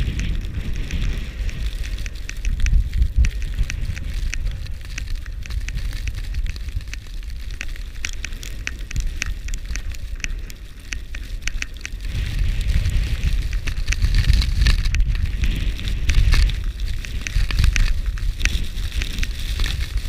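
Storm wind buffeting a GoPro Hero4 Silver's microphone, a heavy low rumble that eases a little mid-way and swells strongly about twelve seconds in, with constant crackling of wind-blown snow.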